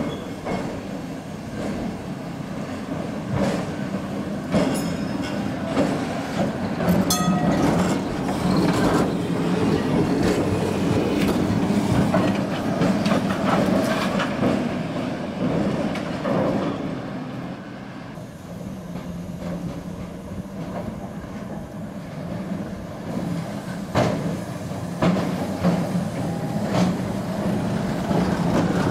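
Vintage Amsterdam two-axle electric tram running slowly over rails and pointwork, its wheels clacking over the joints, with a short wheel squeal about seven seconds in.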